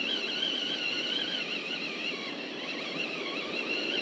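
Fishing reel whining as it is cranked to wind up a hooked sea bream. The high whine wavers up and down in pitch, over a low hiss of wind and water.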